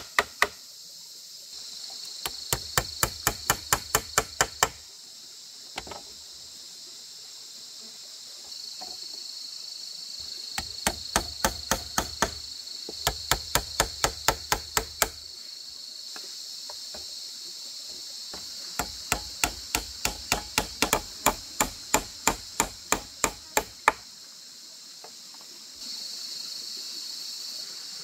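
Four runs of quick, evenly spaced strikes, about four or five a second, from hammering or chopping with a hand tool, over a steady high-pitched insect drone.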